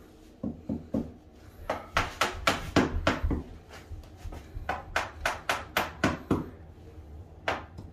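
Small hammer tapping on a whitetail deer shoulder mount: a few light taps, then two quick runs of sharp strokes at about four a second with a short pause between, and two more taps near the end.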